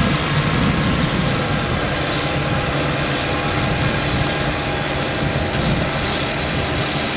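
Kubota 95 diesel engine of a tracked rotary tiller running steadily under working load as the tiller churns through wet paddy mud.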